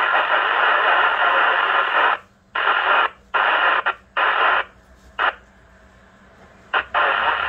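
Alinco CB radio speaker giving a loud, even radio hiss that cuts in and out abruptly. It runs for about two seconds, breaks into a few short bursts, goes nearly quiet for about two seconds, then comes back near the end.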